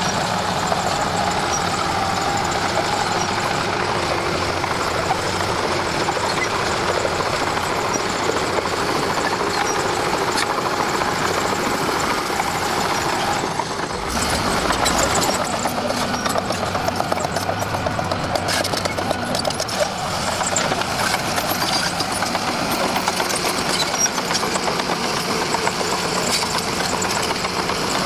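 Diesel engine of a Komatsu D41P crawler bulldozer running steadily as it works, with the engine note changing about fourteen seconds in and running rougher for a few seconds after.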